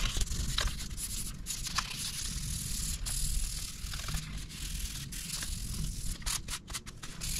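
Sandpaper rubbed by hand over the polyurethane finish on the back of a 1971 Fender Precision Bass neck, in irregular back-and-forth strokes.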